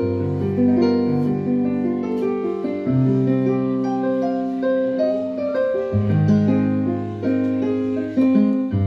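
Korg Kross 2 synthesizer workstation played with both hands through a speaker: held chords over a bass line with a melody on top, the chords changing every second or so.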